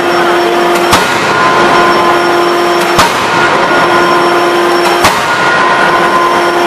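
A 10-ton electro-hydraulic closed-die forging hammer strikes a red-hot flange forging in the die: three heavy blows about two seconds apart. Between the blows a steady machine hum runs, breaking off briefly at each blow.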